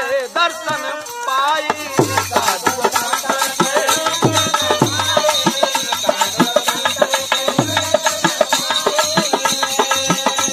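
Birha folk accompaniment: wooden kartal clappers clicking rapidly over held harmonium chords, with low drum strokes falling in pairs. A singing voice closes a line in the first second or so.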